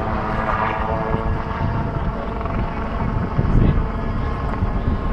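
Helicopter in flight: a steady engine whine of several even tones over a dense low rumble of rotor and engine noise.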